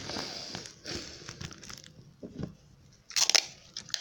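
Brown packing tape crackling as it is handled and pulled off the roll. A louder short rip comes a little past three seconds in as the tape is torn off with the teeth.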